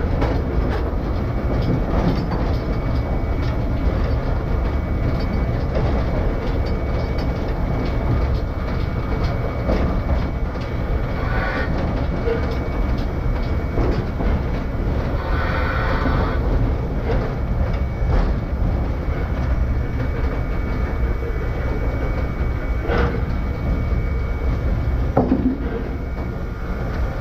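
A train running steadily along the track, with a continuous rumble of wheels on rail. Twice, about twelve and sixteen seconds in, a brief higher-pitched noise rises above the rumble.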